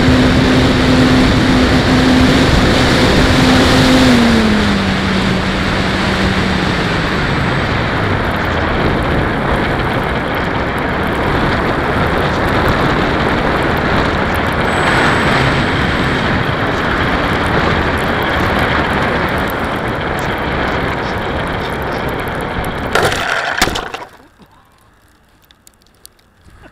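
ParkZone T-28 electric park flyer heard from its onboard camera: a steady motor-and-propeller tone that drops in pitch in steps over the first several seconds as the throttle comes back, under constant rushing wind noise. Near the end come a few sharp knocks as it touches down in the mud, and the noise cuts off suddenly as the plane stops, nosed over onto its back.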